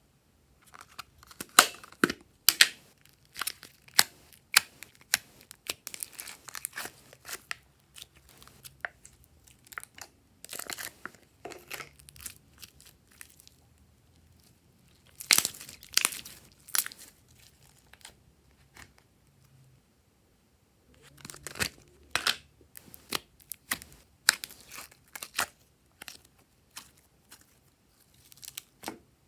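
Glossy slime being worked by hand, giving quick runs of sharp clicks, pops and crackles, with short pauses between the runs.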